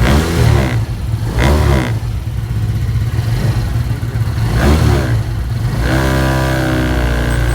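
PGO Tigra scooter engine on its centre stand, the throttle blipped three times, each a quick rise and fall in revs, then running steadily with a buzz from about six seconds in. Under the blips the plastic panel below the lock vibrates with a loud resonant rattle.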